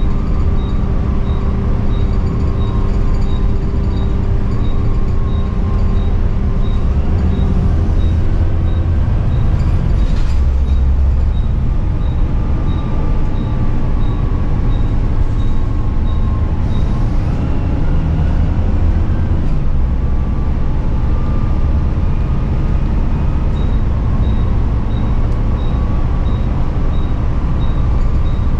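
Volvo B9TL double-decker bus on the move, heard from inside the passenger saloon: the low drone of its Volvo D9A straight-six diesel under a whine from the ZF Ecomat six-speed automatic gearbox, the whine rising in pitch about two-thirds of the way through. A single knock about ten seconds in, and a faint regular ticking, about two a second, at the start and near the end.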